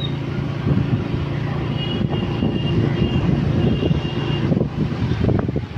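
A motor vehicle's engine running steadily while driving, a low hum under road and wind noise.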